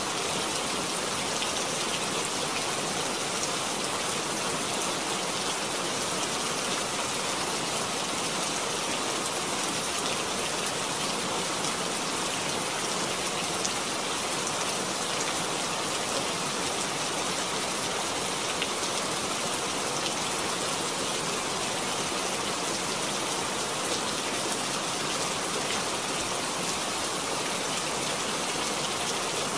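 Steady rain: an even, unbroken hiss of many drops, with scattered single drops ticking through it.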